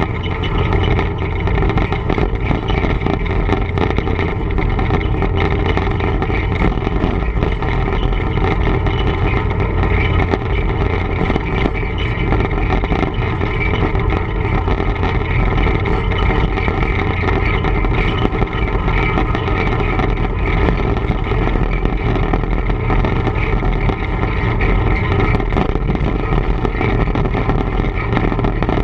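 TEM2 diesel shunting locomotive under way: its six-cylinder diesel engine runs with a steady, even drone, with faint ticks and rattles over it.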